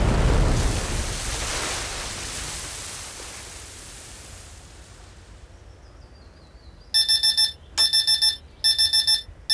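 Rush of splashing water that fades away over the first few seconds, then a digital clock radio's alarm going off: quick groups of about four high beeps repeating nearly once a second.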